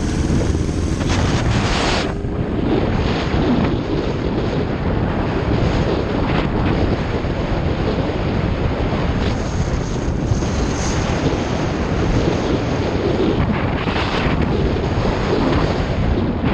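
Wind rushing over the microphone of a motorcycle ridden at speed, a steady loud buffeting with road noise underneath.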